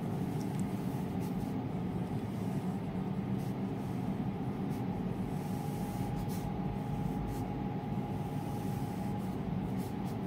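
Steady background hum with a faint high whine, under the light scratching of a ballpoint pen drawing on notebook paper.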